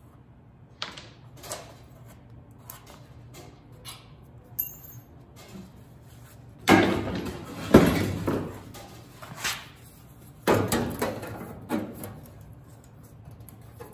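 Clanks, knocks and rattles of a steel sheet-metal patch panel being handled and set against the lower rear quarter panel of a 1930 Ford Model A roadster body during fitting. The loudest cluster of clanks comes about seven seconds in, with another group about ten and a half seconds in.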